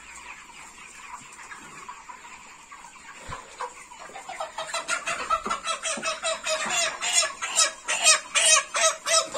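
Broiler chickens clucking. From about four seconds in, a caught bird squawks loudly in rapid repeated calls as it is grabbed and handled.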